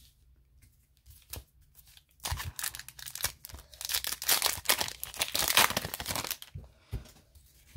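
A trading-card pack's wrapper being torn open and crinkled by hand: a few light clicks, then about four seconds of dense crackling, followed by a single short knock.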